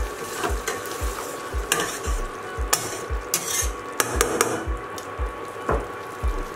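A spatula stirs taro stolons in a thick mustard and poppy-seed gravy in a stainless steel kadai: soft wet stirring with scattered clicks and scrapes of the spatula against the pan, busiest in the middle and with a last one near the end. A steady low pulse about twice a second runs underneath.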